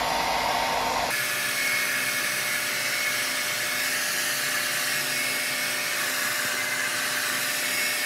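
Croma hand-held hair dryer running on its low speed setting (1), a steady rush of air over a motor whine. About a second in, the sound changes to a thinner, higher whine.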